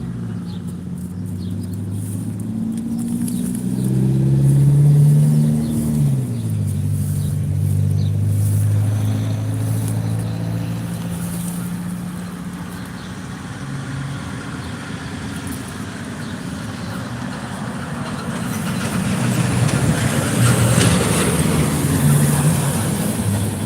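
Motor vehicle engine running, its pitch climbing and dropping about four to six seconds in, then running steadily, with a rising hiss near the end.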